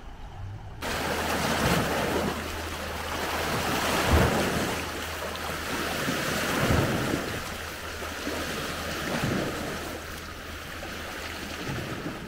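Wind buffeting the microphone outdoors: a rushing noise that starts about a second in, with low rumbling gusts that peak a few times.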